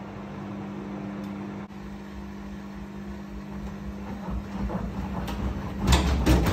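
Beko WRE6512BWW washing machine humming steadily as the drum turns. From about four seconds in, low thuds build up, and near the end they turn into loud, rapid knocking as the machine jumps on the spin burst.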